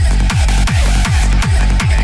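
Electronic dance music with a heavy kick drum on every beat, about two and a half beats a second.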